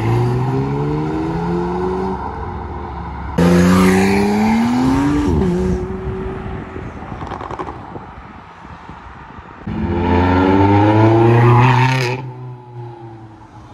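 Sports cars accelerating away one after another, each engine note rising in pitch as it revs up, with abrupt changes from one car to the next. The loudest, about ten seconds in, is a Ferrari 360 Challenge Stradale's V8 revving up as it pulls away.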